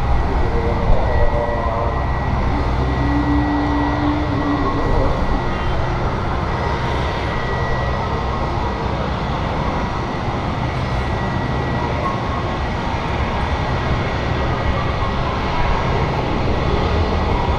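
Airbus A320's twin IAE V2500 jet engines on final approach and landing: a steady low rumbling roar with a thin high whine over it.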